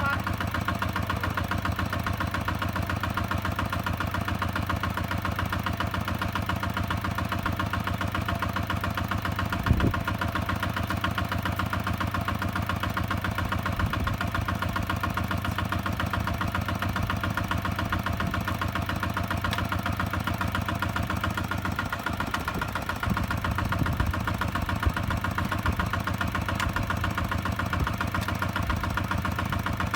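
Single-cylinder diesel engine of a Kubota two-wheel tractor running steadily at low speed, with a steady rapid chugging. A single knock about ten seconds in.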